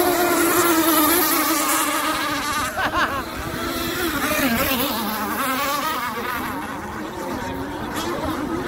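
Radio-controlled racing catamarans with Zenoah gas two-stroke engines running flat out across the water: a high, buzzing engine whine that wavers in pitch and is loudest about a second in.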